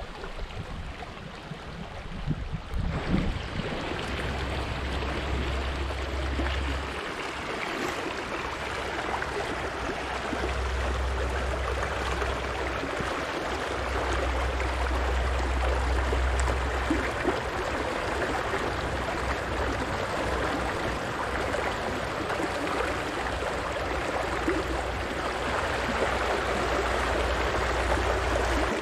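Shallow freestone river running over rocks in a riffle: a steady rush and gurgle of water that grows louder a few seconds in. A low rumble comes and goes underneath.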